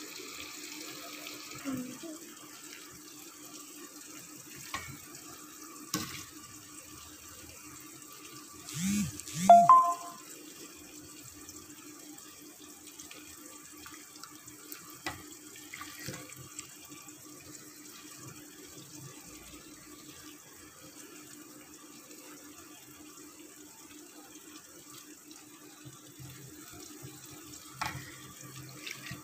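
Hands working wheat flour in a steel bowl: soft rustles and a few light clicks against the bowl over a steady low hum and hiss, with one loud short clatter about nine seconds in.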